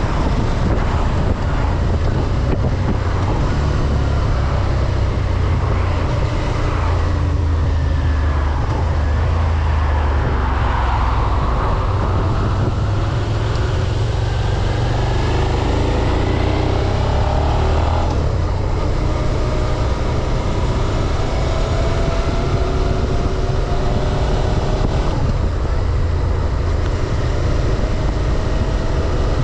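2024 Suzuki SV650's 645 cc V-twin through its stock exhaust, running under way, its note rising and falling several times with throttle and gear changes.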